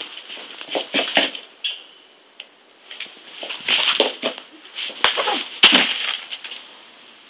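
Crumpled brown paper rustling and crunching in irregular bursts as a Mini Rex rabbit runs and hops over it, with a few soft knocks; the loudest bursts come in the second half.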